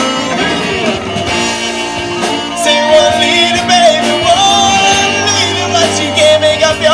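Live rock band playing with electric guitars, bass, keyboard, drums and saxophone. A long lead note is held and wavers through the second half.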